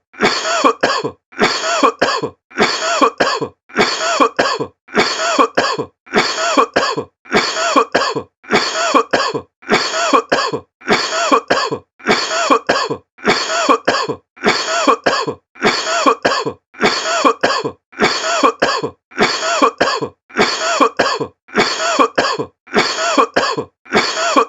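A person coughing over and over in short, evenly spaced fits, a little more than one a second, with the same cough repeating like a loop.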